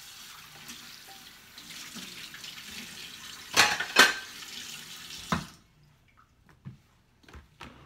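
Kitchen tap running into a stainless steel sink while dishes are washed, with two loud clatters of dishware about three and a half and four seconds in, as an item goes into the dish rack. The water stops suddenly about five and a half seconds in, leaving a few light knocks.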